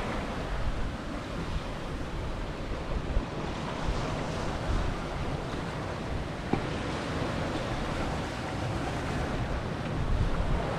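Rushing, breaking sea and wind around a Vancouver 34C sailing yacht running through whitecapped ocean swells, with wind buffeting the microphone in a low, uneven rumble.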